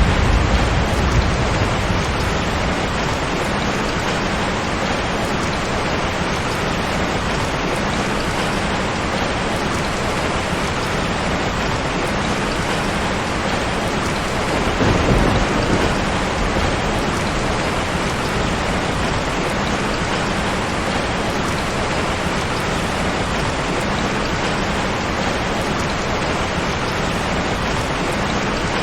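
Steady heavy rain hissing on surfaces, with low rolls of thunder: one dying away in the first second or so, and another swelling briefly about halfway through.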